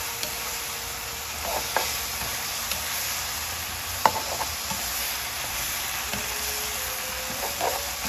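Shrimp and vegetables sizzling in hot oil in a pan on high heat while being stirred, with a few sharp clicks of the stirring utensil against the pan, the loudest about four seconds in.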